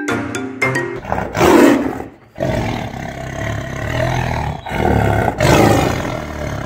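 Tiger roar: a short roar about a second and a half in, then after a brief break a longer roar lasting several seconds.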